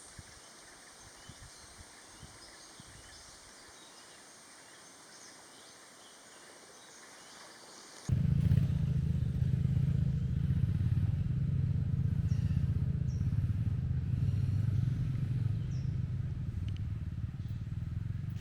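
Quiet forest ambience with a steady insect hum and faint bird chirps. About eight seconds in it cuts abruptly to a loud, steady low rumble of a vehicle on the move.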